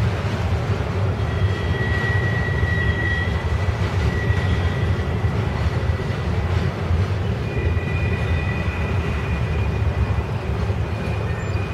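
Intermodal freight train's well cars rolling past, a steady low rumble of wheels on rail. A thin high-pitched squeal drifts in and out over it.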